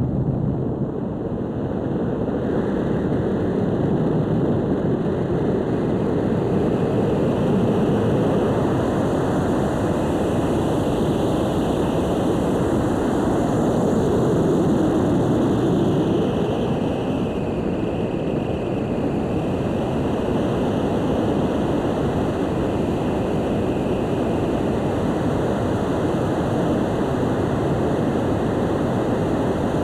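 Steady rushing airflow over the wing-mounted camera's microphone as an ultralight trike glides with its engine switched off; no engine or propeller note is heard.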